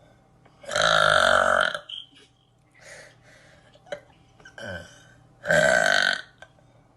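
A young woman letting out two long, loud burps, the first about a second in and lasting about a second, the second shorter, near six seconds. A few faint short sounds come between them.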